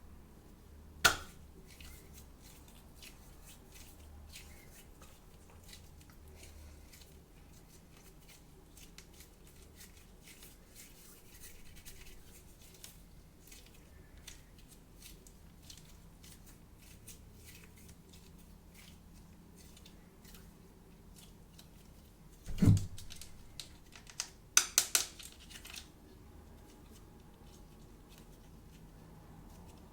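Toy packaging being opened and handled: faint rustling and small ticks throughout, a sharp click about a second in, a heavy knock about three-quarters of the way through, then a quick run of sharp clicks.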